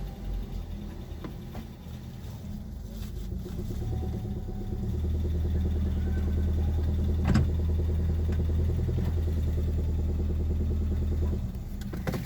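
Toyota 1NZ 1.5-litre four-cylinder engine running with a rhythmic knock, the knock the owner is recording. About five seconds in it is held at raised revs for several seconds, then drops back to idle near the end; one sharp click about seven seconds in.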